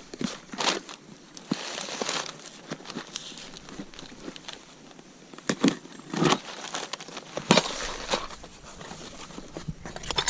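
Cardboard box and packaging being opened and rummaged through: irregular crinkling, rustling and tearing with scattered sharp knocks from parts being handled.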